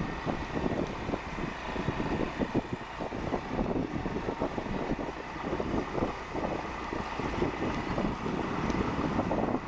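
Motorbike riding along, its engine running steadily under rough, gusty wind noise on the microphone.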